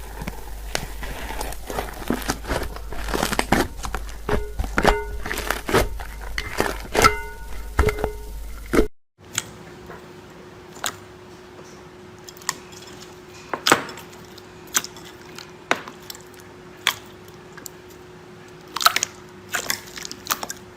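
Slime being squeezed and pressed, with dense crackling pops and crunches. It breaks off about nine seconds in and gives way to sparser single pops over a faint steady hum.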